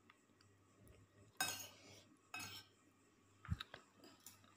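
Faint sounds of tableware being handled: two short scraping rustles, then a dull knock and a few small clinks of a spoon on a plate about three and a half seconds in.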